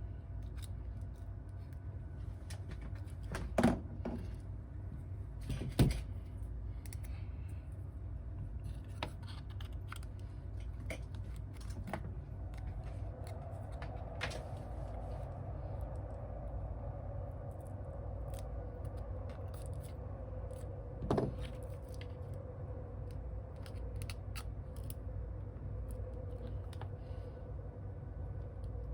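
Small clicks and taps of hand tools on a phone being repaired, with a few sharper knocks about 3.5, 6 and 21 seconds in, over a steady low hum.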